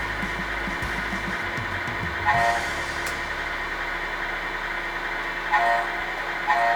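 Tamiya MFC sound unit for an R/C truck playing sound effects through its small speaker: a steady engine-like hum, with three short horn toots about two, five and a half, and six and a half seconds in.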